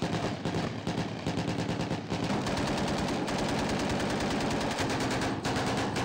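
Rapid automatic gunfire from several weapons firing blanks, in overlapping bursts that become almost continuous from about two seconds in.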